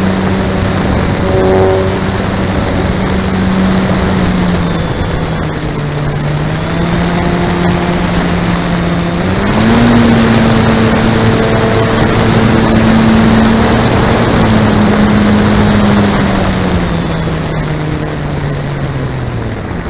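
Radio-controlled model airplane's motor and propeller heard from on board in flight: a steady drone with wind rush on the microphone. The pitch drops about four to five seconds in, climbs back up near ten seconds, then slides down gradually near the end as the throttle comes back.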